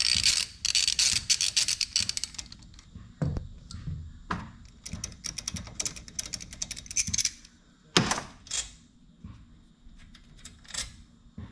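Socket ratchet wrench clicking as a bolt is worked out of a small engine's side cover: two long runs of rapid clicks, at the start and again in the middle, with a few separate knocks of the tool between them.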